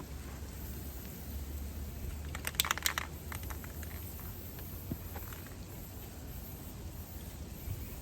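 Light handling noise: faint clicks and rustles, with a short cluster of sharp clicks about two and a half seconds in, over a low steady hum.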